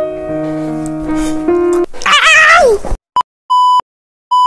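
Edited-in sound effects: a held music chord of steady notes for about two seconds, then a brief high wavering cry, then from about three seconds in a series of one-pitch electronic beeps, the middle one longer, with dead silence between them.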